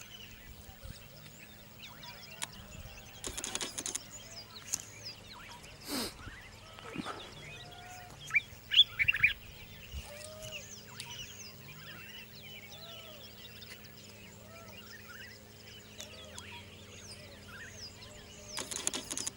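Wild birds chirping and calling in a busy chorus, with a cluster of louder, sharp chirps about nine seconds in. A steady low hum runs underneath, and short rushes of noise come at about three seconds and near the end.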